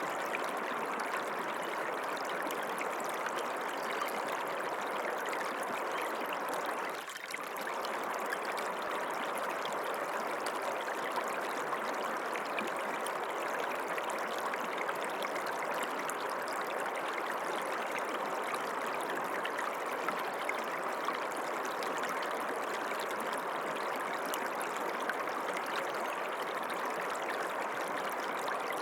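Water running in a stream, a steady rushing and trickling that dips briefly about seven seconds in.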